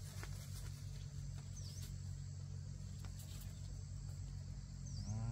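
Outdoor rural ambience: a steady high insect drone with two short high chirps, one about a second and a half in and one near the end, over a low steady hum.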